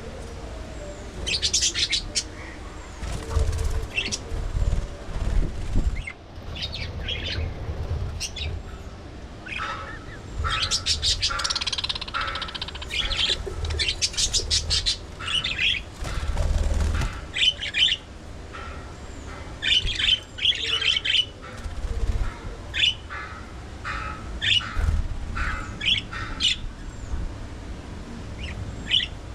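A colony of budgerigars chirping and squawking, many short, sharp calls coming in quick clusters throughout, over a low rumble.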